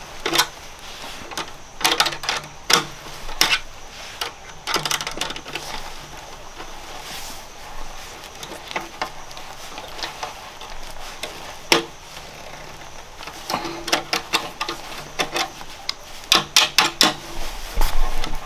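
Irregular sharp clicks and knocks, coming in quick clusters with gaps between them. There is one single louder knock about two-thirds of the way through, and the clicks come thicker near the end.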